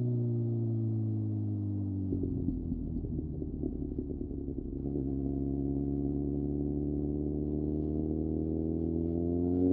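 Sport motorcycle engine while riding: its note falls as the throttle is eased, goes rougher and quieter for a few seconds, then runs steadily again and climbs near the end as the bike accelerates.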